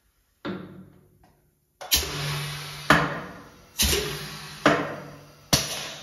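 Pressta Eisele 5000 hydro-pneumatic corner crimper cycling: a run of six sudden blasts of air hiss, about one a second, each starting sharply and dying away, with a low hum under two of them.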